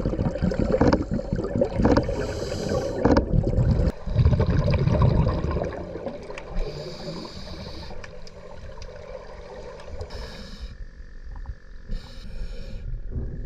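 A scuba diver breathing underwater through a regulator: hissing inhales every few seconds and bubbling, rumbling exhales.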